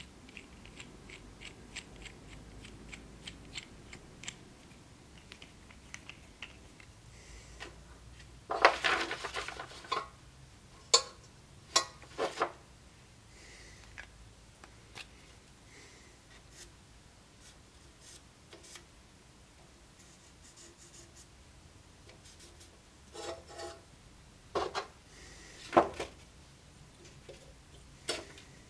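Steel parts handled on a workbench: a machined pommel, sword tang and calipers clicking and scraping against each other and the bench. A denser stretch of scraping comes about nine seconds in, and scattered sharp clicks follow.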